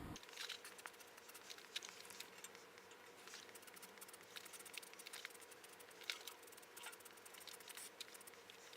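Near silence: faint room tone with scattered light ticks and clicks.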